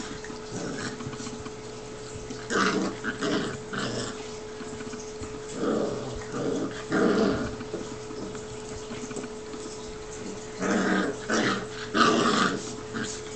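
Two seven-week-old Newfoundland puppies growling at each other as they play-wrestle, in three short bouts of a second or two with quieter pauses between.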